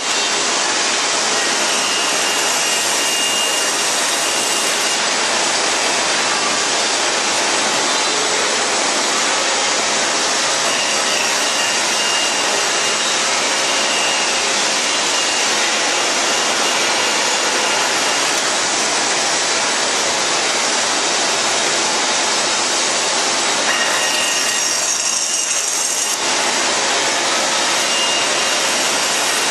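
Yow Cherng CNC band saw cutting curved chair legs out of a stack of wooden boards: the blade running through the wood gives a loud, steady sawing noise.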